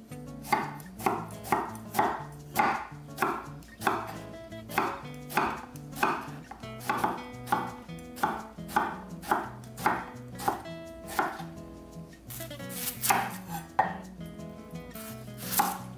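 Kitchen knife chopping vegetables on a cutting board in steady strokes about two a second, then a short pause and a few louder cuts near the end.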